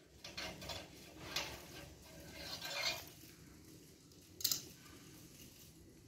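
Screwdriver scraping and clicking against the brass gas nozzles of a water heater burner as they are unscrewed, then a single sharp clink about four and a half seconds in.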